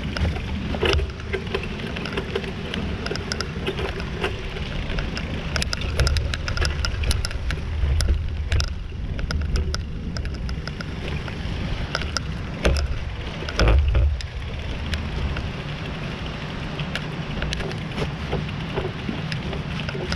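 Bicycle riding down a dirt trail: tyres rolling over the ground with frequent sharp clicks and knocks as the bike rattles over bumps, and wind buffeting the microphone in a steady low rumble. Two louder jolts come a little past halfway.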